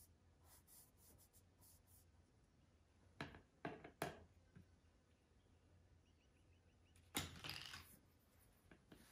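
Near silence broken by a few short, dry scratches of a watercolour brush: three quick strokes about three to four seconds in, and a longer stroke about seven seconds in.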